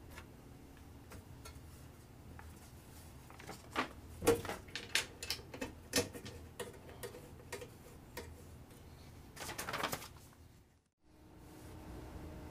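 Clicks and knocks from handling the hinged lens door of a 3M traffic signal head as it is swung shut and latched, with a denser clatter about ten seconds in.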